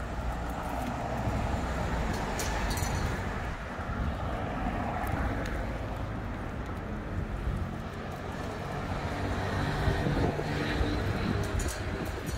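Street traffic: cars running along the road, steady engine and tyre noise that swells as a vehicle passes about ten seconds in, with a few light clicks.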